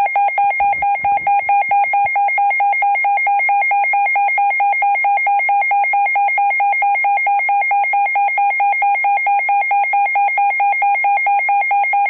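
Midland WR-120 weather alert radio sounding its alert test alarm: a loud, high, rapidly pulsing beep repeating evenly at a steady pitch.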